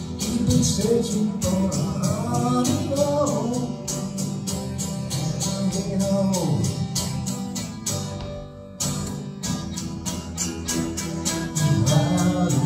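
Acoustic guitar strummed in a steady rhythm while a violin plays the melody above it, in an instrumental passage with no lyrics. The music drops away briefly about two-thirds of the way through, then the strumming picks up again.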